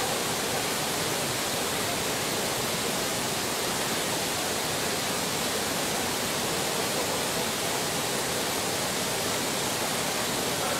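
Muddy flash-flood torrent rushing over a washed-out road edge: a steady, unbroken rush of water.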